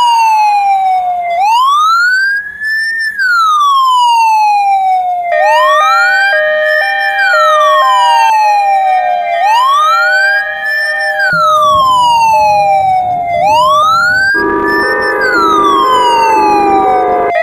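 Ambulance siren in a slow wail, its pitch rising quickly and sliding down slowly about every four seconds. From about five seconds in, steady tones stepping between a few pitches sound along with it, and a low rumble joins near the end.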